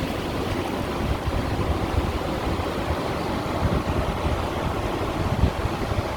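Small sea waves washing over and against shore stones, a continuous watery rush without pauses.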